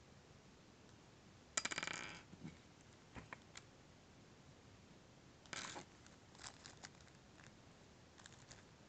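A small metal vape-kit part clinks onto a hard tabletop about a second and a half in, ringing briefly. Light clicks follow, then a second, shorter clatter of small parts near the middle.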